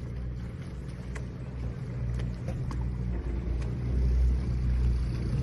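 Cruise boat's engine running with a steady low drone, heard on board, with a few faint ticks over it; the drone swells a little about four seconds in.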